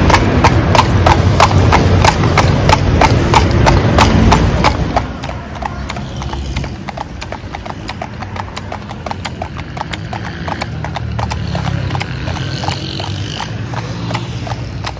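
Hooves of two carriage horses pulling a calèche, clip-clopping on an asphalt road in a steady rhythm of about four strikes a second. A heavy low rumble under the first five seconds drops away, leaving the hoofbeats fainter.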